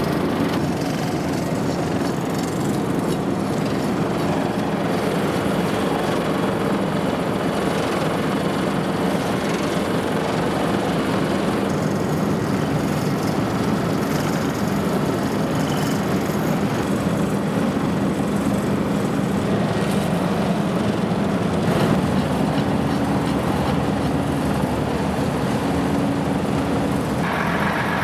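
A heavy vehicle or road machine's engine running steadily with a continuous rumble; a brighter hiss joins near the end.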